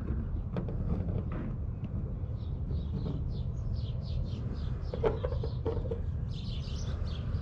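A small bird chirping in a quick run of short, high notes, several a second, starting a couple of seconds in and running on to near the end, over a low steady rumble with a few faint clicks.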